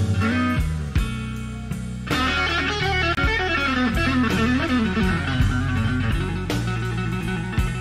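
Slow electric blues from a live recording: a lead electric guitar playing bent, sliding notes over bass and drums.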